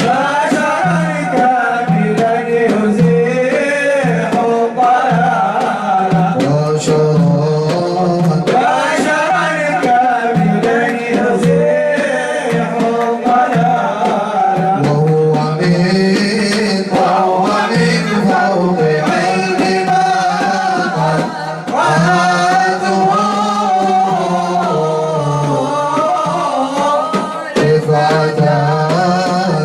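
Male voice singing an Arabic nasheed, an Islamic devotional song, in a continuous ornamented melody over a steady low drone.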